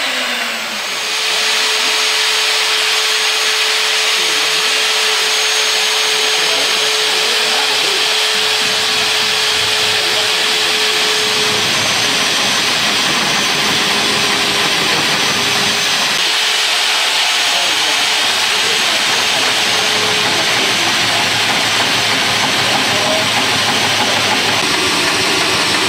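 Magnetic-base drill's electric motor running steadily as its cutter bores into a locomotive's steel plate, a loud whining drone with a constant hum; the level dips briefly about a second in.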